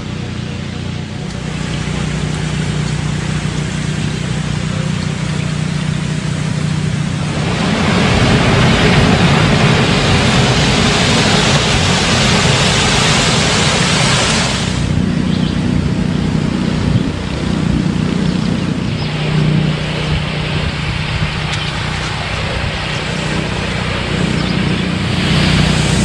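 Water pouring over a weir between concrete fish-hatchery raceways: a steady rush that grows louder and brighter about a third of the way in, then eases off about halfway through. A steady low hum runs underneath.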